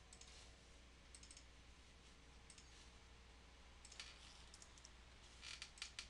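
Faint scattered computer mouse clicks, some in quick pairs and clusters, over a low steady hum.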